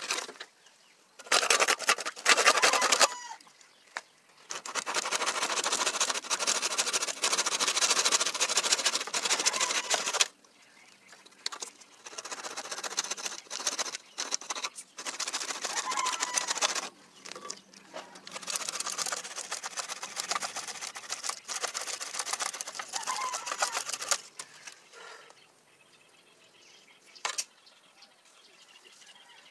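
Handsaw sawing through the woody base of an alagaw shrub in quick back-and-forth strokes. A short spell and a longer, louder one of about six seconds come first, then softer, broken spells of sawing.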